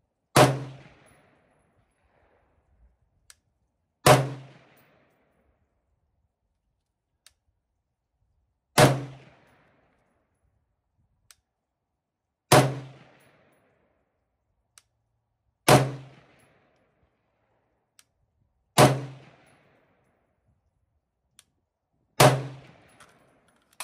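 Seven single shots from an unsuppressed 14.5-inch AR-15 short-barrelled rifle, fired slowly and evenly about three to four seconds apart, each a sharp crack with a short echo.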